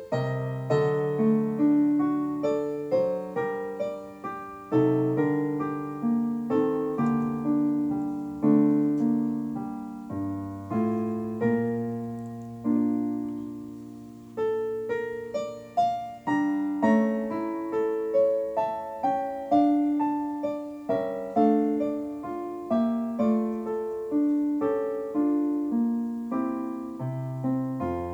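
Background piano music: a gentle melody of struck notes over a slow, steady bass line, each note fading after it is struck.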